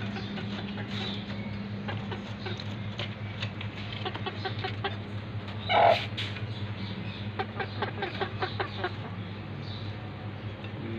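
Chickens clucking in a run of short calls, with one loud call about six seconds in, over a steady low hum.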